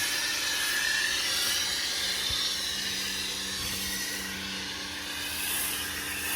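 Pressure washer with a foam cannon spraying soap foam onto a car: a steady hiss, with the washer's motor humming in from about halfway through.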